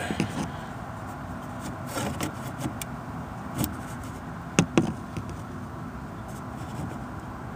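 A few light clicks and taps from small handheld tools being handled against plastic trim, over a steady low background hum. The loudest tap comes about four and a half seconds in.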